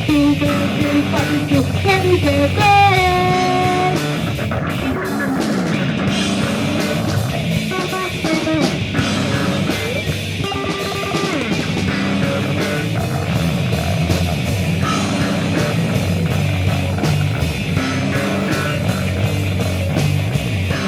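Rock band playing an instrumental passage: electric guitar with drum kit, with gliding guitar notes a few seconds in.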